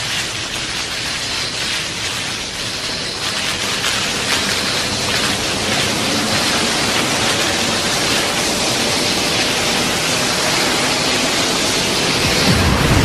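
A film sound effect of a steady rushing noise, like heavy rain or a waterfall, slowly growing louder, with a low rumble joining near the end.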